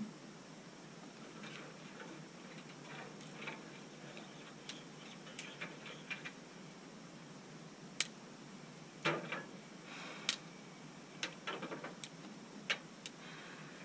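Kindling of dry twigs and paper alight in a brick wood stove's firebox, crackling with irregular sharp pops and snaps, a quick cluster of them about nine seconds in.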